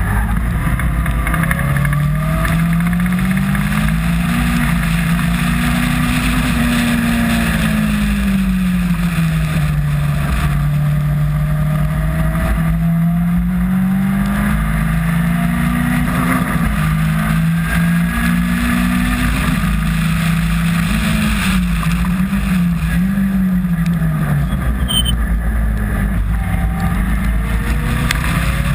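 Caterham R300 Superlight race car's engine at racing speed, heard on board: its note climbs and falls over and over as the driver accelerates, lifts and shifts gears, with a quick run of up- and down-shifts about two-thirds of the way through. A dense rush of wind and water spray in heavy rain runs underneath.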